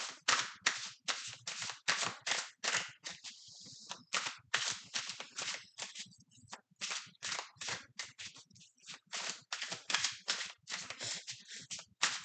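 Tarot cards being shuffled by hand: a quick run of card slaps, about four a second, with short pauses and a brief sliding hiss about three seconds in.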